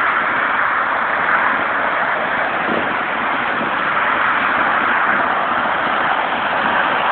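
Steady rush of distant road traffic and motorcycles, even and unbroken, with no single engine standing out.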